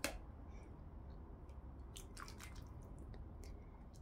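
A metal ladle in a pot of thick soup: a few faint clicks and soft liquid sounds, with one sharper click at the very start and a cluster about two seconds in, over a low steady hum.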